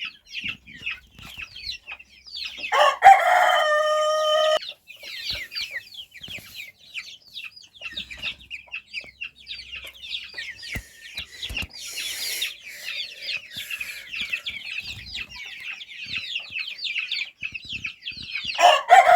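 Chickens clucking and chirping continuously, with a rooster crowing loudly about three seconds in and again at the very end.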